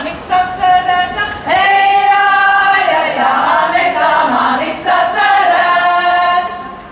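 A women's Latvian folk choir singing a folk song together, holding long notes; the singing ends and fades out just at the end.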